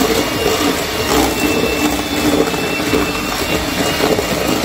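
Handheld electric mixer running steadily with a thin motor whine, its beaters whipping egg whites and sugar into a meringue in a stainless steel bowl.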